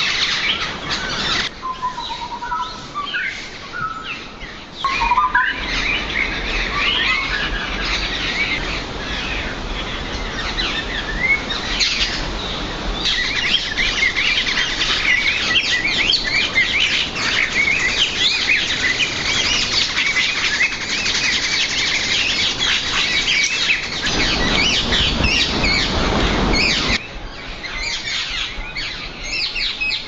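Wild forest birds chirping and calling over one another, many short chirps and whistles at once. A few clear whistled notes stand out in the first few seconds, and the chorus grows denser from about halfway. Near the end a low rumbling noise joins for a few seconds.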